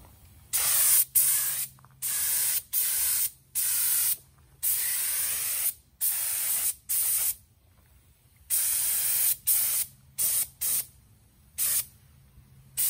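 Gravity-feed air spray gun spraying paint in short bursts as the trigger is pulled and released, over a dozen times, each burst a second or less, with a pause of about a second near the middle.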